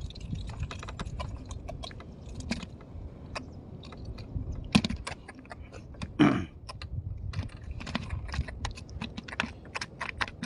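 Small irregular clicks and taps of fish being handled in a plastic bucket, with one sharper knock about five seconds in and a short low sound with a falling pitch just after six seconds.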